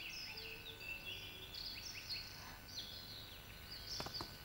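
Birds chirping and twittering in the background, a steady stream of short high calls. Near the end come a couple of soft footstep taps.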